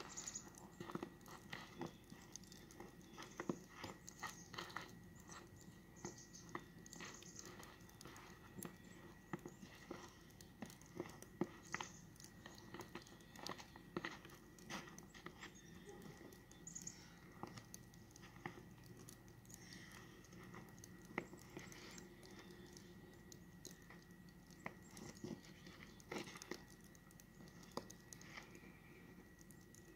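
Faint, irregular crunching and clicking of snow underfoot, several times a second at uneven intervals, over a faint steady high tone.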